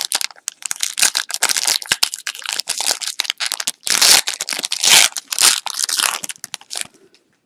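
A foil trading card pack wrapper being torn open and crinkled in the hands, with a dense run of crackling and crumpling that stops abruptly about a second before the end.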